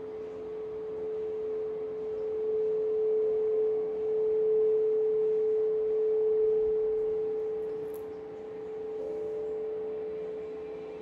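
A single sustained ringing tone held at one steady pitch, with faint higher overtones. It swells louder through the middle and eases off toward the end.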